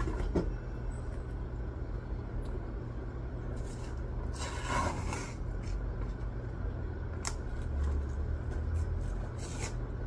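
A paper label being picked and peeled off a cardboard box by hand: fingernail scratching and short rips, with one longer tear about four to five seconds in, over a low steady hum.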